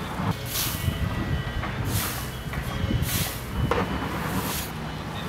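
Fire engine idling with a steady low hum, with short bursts of hiss recurring about every second and a half.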